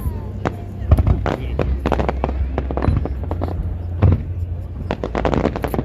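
Fireworks display: a rapid, irregular series of bangs and crackles over a steady low rumble, with a dense cluster near the end.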